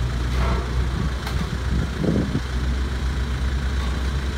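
Hyundai Porter II's four-cylinder turbodiesel idling steadily, with a sharp click about a second in and a short rattle about two seconds in as the box's side wing is unlatched and swung up.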